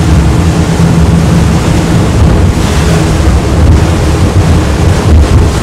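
Twin 400 hp Mercury outboards running at speed as the boat banks through a hard turn, with the rush of water and spray off the hull and heavy wind buffeting on the microphone. The sound stays loud and steady.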